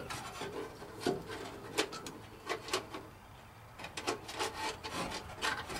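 Hands working a wiring harness and its rubber grommet free of a 1985 Chevy K10's dash frame: irregular rubbing and scraping with short clicks of wires and plastic against metal.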